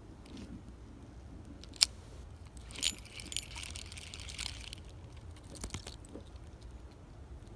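Spinning reel and fishing line during a cast: a sharp metallic click about two seconds in, then a hiss of line lasting a second and a half, and a few softer clicks near the end.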